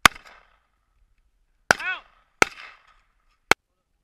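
Four single gunshots from an AR-15-style rifle, unevenly spaced, the second followed by a short ringing tone.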